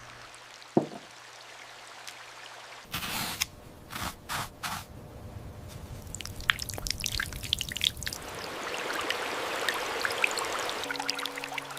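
Water sounds: a single drip plink about a second in, a few short splashes between three and five seconds, then trickling that builds into steadily pouring, running water. Steady music tones come in near the end.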